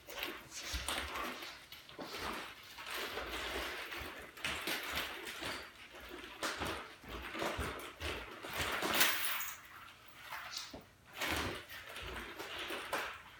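Irregular swishing and rustling from a pair of practice sticks being twirled and swung, with shuffling footsteps and dull thumps on a wood floor; the loudest swish comes about nine seconds in.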